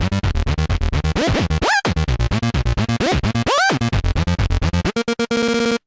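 Electronic music outro: rapid stuttering, chopped synth and bass with scratch-like swooping pitch glides, cutting off at the end.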